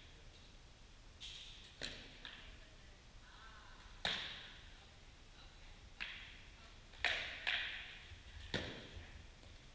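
Sword blows landing on round shields and armour in a sparring bout: about eight sharp knocks at uneven intervals, the loudest about four and seven seconds in, with a close pair just after seven seconds. Each knock rings on briefly in the echo of a large hall.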